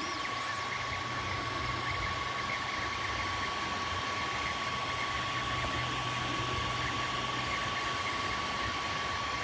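3D printer running: a steady fan and motor hum with a constant high whine.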